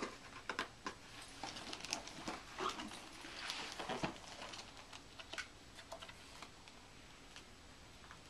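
Faint scattered clicks and crinkles of a wrapped gift box and torn wrapping paper being handled, with a short rustle about three and a half seconds in.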